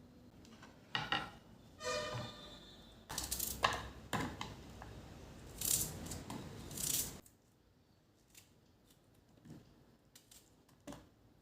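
Kitchen handling sounds: a run of sharp clicks and short rustling clatters, with a brief squeaky scrape about two seconds in, thinning to a few faint ticks after about seven seconds.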